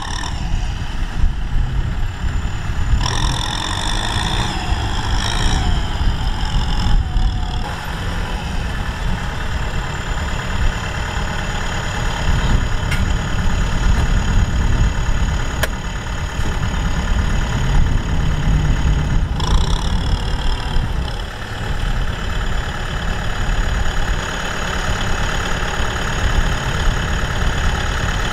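Kubota M6040SU tractor's four-cylinder diesel engine idling steadily.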